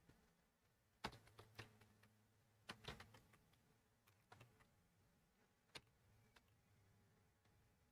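Faint, scattered clicks of computer keyboard keys: a cluster of keystrokes about one second in, another near three seconds, then single clicks around four and six seconds.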